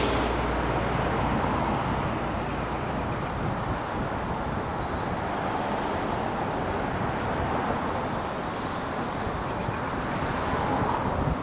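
Steady rushing noise of a large waterfall, with wind rumbling on the microphone.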